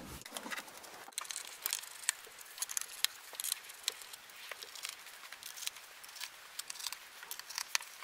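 Faint, irregular small clicks and scrapes of a small screwdriver turning out the screws of a MacBook Pro's aluminium bottom case.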